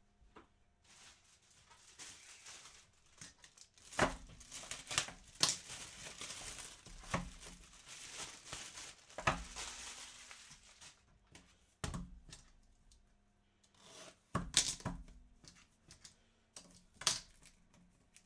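Packaging being torn open and crinkled for several seconds, with a series of sharp knocks and clicks scattered through it.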